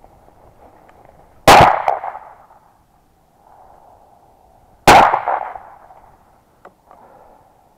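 Two shotgun shots about three and a half seconds apart, the first about one and a half seconds in. Each is a sharp blast with a ringing tail that fades over about a second.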